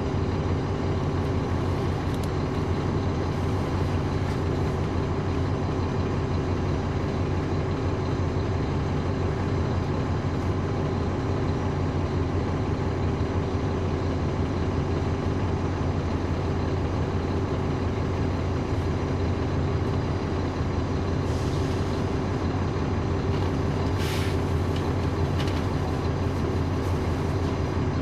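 Caterpillar C13 ACERT diesel engine of a NABI 40-SFW transit bus running at one steady pitch, heard from inside the bus. A few short hisses of air come about three quarters of the way through.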